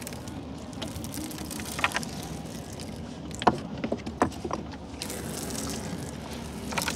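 Water dripping and splashing beside a small fishing boat as a set fishing line is hauled in, with a few sharp knocks in the middle.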